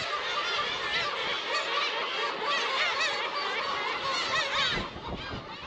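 A colony of black-tailed gulls calling over one another: many overlapping rising-and-falling cries, thinning out near the end.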